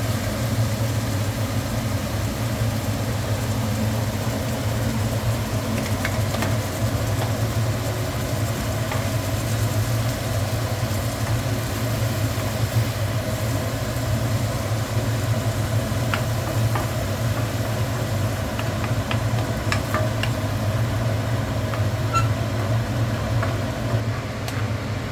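Food frying in oil in a pan under a steady low hum, with a few light utensil clicks.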